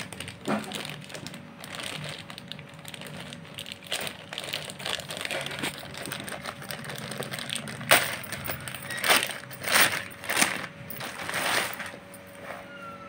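Plastic courier mailer bag crinkling as it is handled and torn open by hand, with louder rips and rustles about eight to eleven seconds in.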